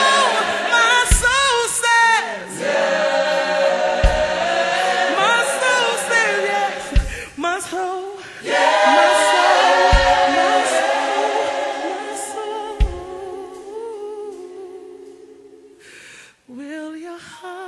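Gospel worship singing by a choir, with a low thump about every three seconds. The singing fades down near the end.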